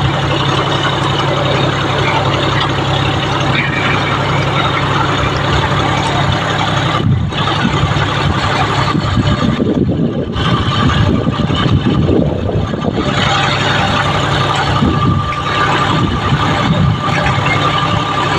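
A John Deere tractor's diesel engine runs steadily under load, pulling a two-bottom mouldboard plough through the soil. Its note becomes rougher and more uneven partway through.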